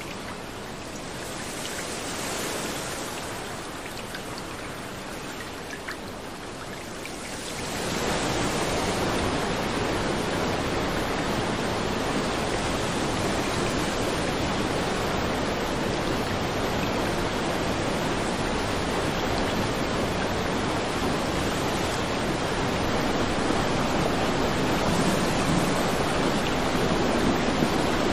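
Fast-flowing floodwater rushing and churning, a steady noisy rush of water. About eight seconds in it becomes louder and fuller.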